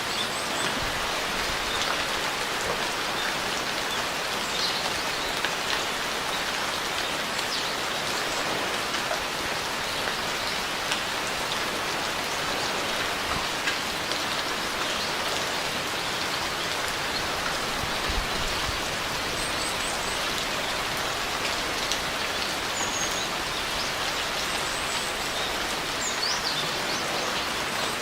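Steady rain, a dense, even patter of drops falling on a surface.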